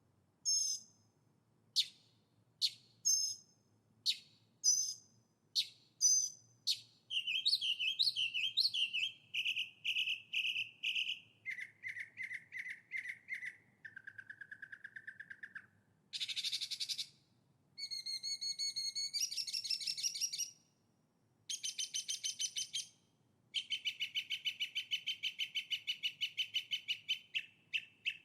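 A songbird singing a varied song. For the first few seconds it gives short, sharp chirps about twice a second. It then runs through a string of rapid trills, each held a second or two at a different pitch, some low and buzzy, others high and fast.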